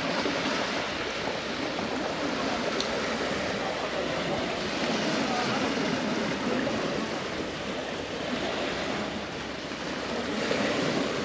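Sea waves washing onto the shore: a steady rush of surf.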